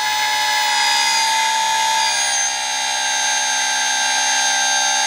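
Electric motor-driven oil pump of a homemade jet engine's oil system running with a steady, many-toned whine. One tone near 1 kHz swells briefly about a second in, while air pressure is dialed in to raise the oil pressure.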